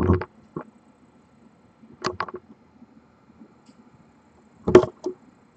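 Small clusters of sharp clicks and light knocks: one group at the start, another about two seconds in, and a louder group near the end, with quiet room tone between.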